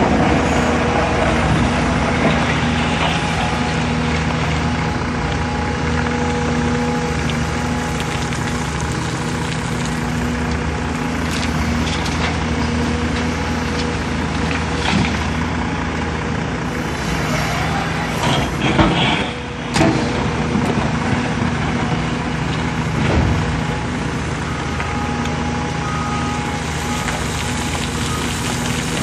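Caterpillar 336 excavator's diesel engine running steadily while it works, loading a truck. A few knocks and a short clatter come about two-thirds of the way through.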